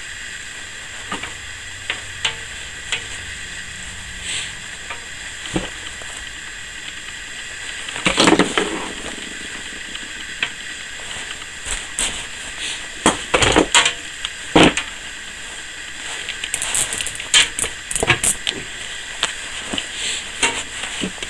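Copper wire being pulled through a homemade wire stripper made from a pipe cutter, its cutting wheel slitting the cold, stiff insulation: irregular scraping and clicking over a steady faint hiss, loudest about eight seconds in and again in a cluster between about 13 and 18 seconds.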